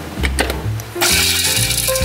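An electric mini food chopper's stainless motor head is seated on its glass bowl with a few clicks, then switched on about a second in, its blades whirring and chopping the garlic, ginger and shallots inside. Background music plays throughout.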